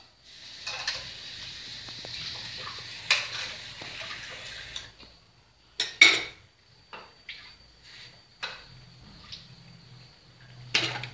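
Metal spatula scraping and clanking against a wok as pineapple and beef are stir-fried. A steady scrape and sizzle runs for about five seconds, then come separate sharp clanks, the loudest about six seconds in.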